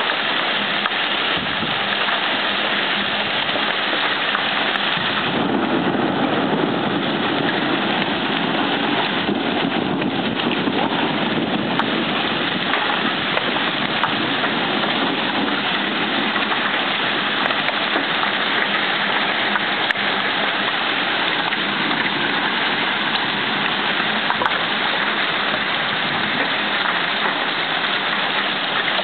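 Heavy downpour of rain mixed with hail: a steady, dense hiss of water and hailstones falling on the street, cars and pavement.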